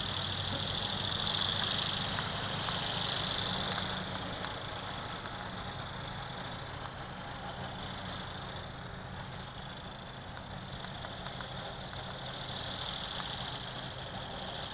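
High-pitched whine of an RC ornithopter's small electric motor and gearbox in flight. It swells and fades as the toy flies nearer and farther: loudest about one to four seconds in and again near the end.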